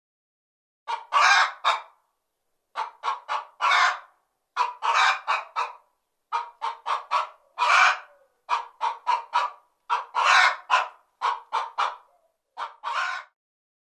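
Hen cackling: runs of short clucks, many ending in a longer, louder squawk, repeated in groups about every one to two seconds.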